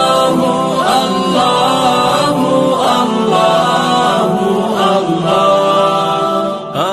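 Islamic devotional chant (nasheed) sung by layered voices in long held, melodic notes that slide between pitches, with no clear words. A quick rising vocal glide comes near the end.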